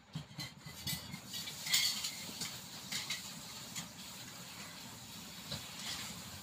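Light clicks and scratchy scrapes of hands and a small tool handling an opened tablet's circuit board, battery and back cover, a scattering of separate taps with a busier patch of scraping about two seconds in.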